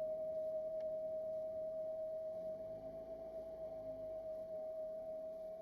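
Whistle-like whine from the front drive shaft of a Suzuki Solio MA36S mild-hybrid 4WD: one steady pure tone, easing slightly in level toward the end. It comes only in cold weather and follows road speed rather than engine revs; the dealer traced it to a faulty drive shaft.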